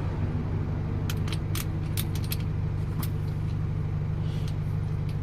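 A steady low vehicle engine drone, with a quick series of sharp metallic clicks and taps between about one and three seconds in as the Torx bit socket and tensioner parts are handled.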